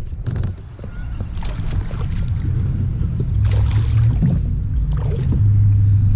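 Hooked bass thrashing and splashing at the water's surface beside a kayak as it is reeled in, a few splashes with the loudest about three and a half seconds in, over a low steady rumble.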